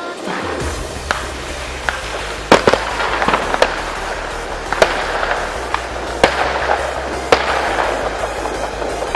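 New Year's fireworks going off: a string of sharp bangs at irregular intervals with crackling between them, the loudest about two and a half seconds in, heard over a music track with a steady bass.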